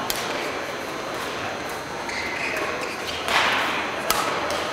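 Badminton rally: sharp racket strikes on the shuttlecock and short squeaks of shoes on the court floor, with a louder noisy hit just after three seconds in.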